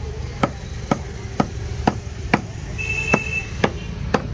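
Heavy cleaver chopping fish on a thick round wooden chopping block: sharp, evenly paced strikes, about two a second.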